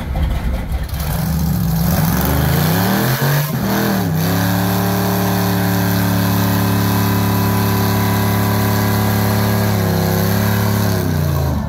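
Car engine revving: its pitch climbs over the first few seconds, then is held at steady high revs for about six seconds, dips briefly and drops away near the end.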